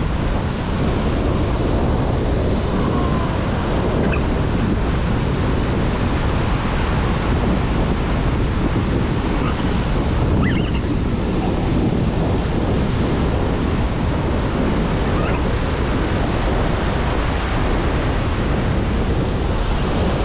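Ocean surf washing steadily onto a beach, with wind rumbling on the microphone.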